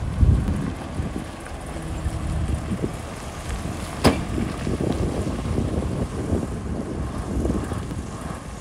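Heavy construction machinery's diesel engine running steadily, with wind buffeting the microphone. A single sharp click sounds about four seconds in.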